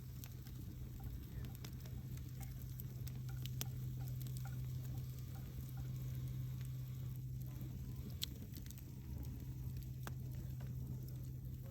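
Wood fire burning, with scattered sharp crackles and pops over a steady low hum.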